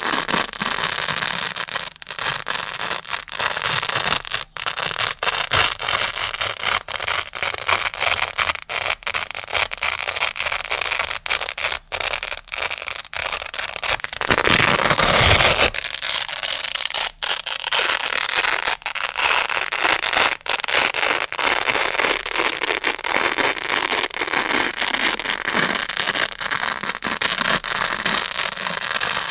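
Grey Velcro hook-and-loop pad worked close to the microphone: a continuous crunchy crackle of the hooks and loops pulling apart, broken by many brief gaps. It swells louder and fuller for a couple of seconds about halfway through.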